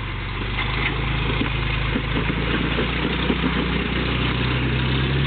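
Off-road vehicle's engine running at low revs while crawling over rock. Its note steps up slightly about four seconds in, and a few light knocks sound in the first half.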